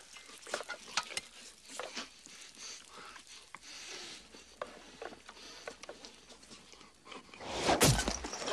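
Scattered small clicks and taps over a faint sizzle. Near the end comes a sudden loud whoosh and thud, an arrow striking.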